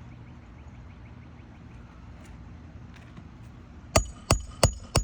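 Hammer blows driving a roofing nail into a replacement asphalt shingle through a shingle repair tool, with a metallic ring. Four quick strikes, about three a second, start about four seconds in.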